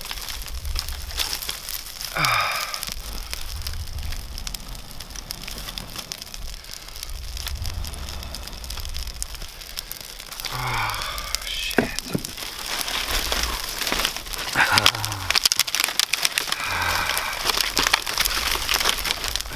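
Small, newly kindled fire crackling and popping as it catches in tinder and kindling, many sharp snaps throughout. A few brief wordless vocal sounds from the person tending it come in between.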